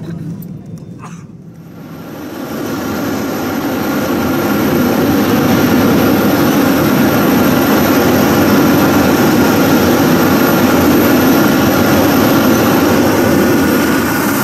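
Steady engine rumble and rolling noise of a vehicle moving across an airport apron, with a thin high whine throughout. It fades up about two seconds in and then holds level.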